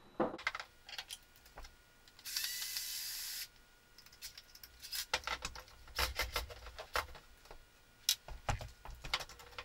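Clicks and clatters of small metal parts and tools being handled while a paint sprayer's motor and gear housing are taken apart, with a brief steady hiss about two seconds in.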